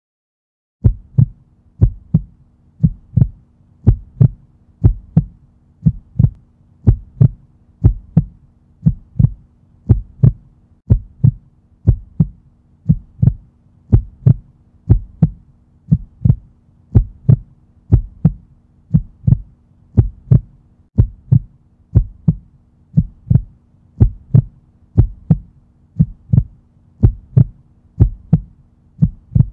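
A heartbeat-like thump, often doubled, repeating about once a second over a faint low steady hum: an edited soundtrack beat, not a recorded heart.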